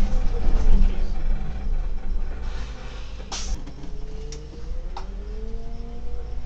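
Solaris Urbino 18 articulated city bus pulling away from a stop, heard from the driver's cab: a steady low rumble, a short hiss of air about three seconds in, then a rising whine as the bus picks up speed, with a few sharp clicks from the turn indicator.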